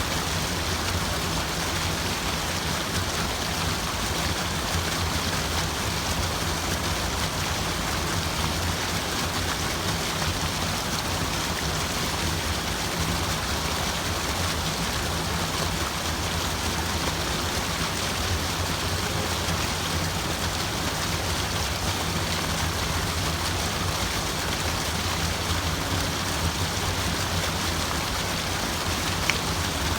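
Steady rushing water, an even unbroken wash of sound with a constant low rumble beneath it. One short tick stands out near the end.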